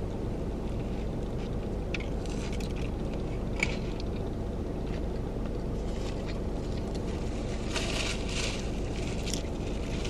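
Someone eating a Big Mac: faint chewing with a few short crackles and clicks, over a steady low hum inside a car.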